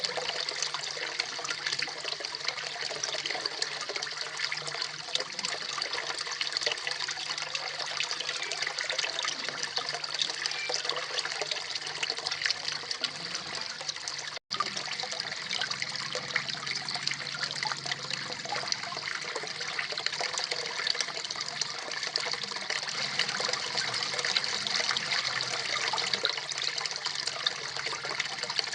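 Small garden waterfall pouring into a koi pond: steady splashing and trickling water, broken by a split-second gap about halfway through.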